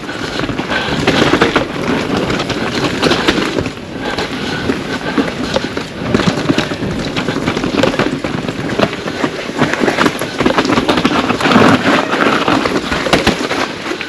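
Pivot Firebird 29 mountain bike descending a rough trail: tyres crunching over dirt and rocks and the bike rattling with a dense, continuous crackle of small knocks.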